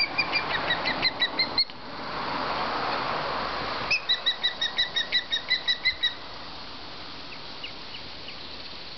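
Ospreys calling at the nest: two runs of short, high, whistled chirps at about five a second. The first run lasts about a second and a half. The second starts about four seconds in and lasts about two seconds. A rushing noise fills the gap between the runs.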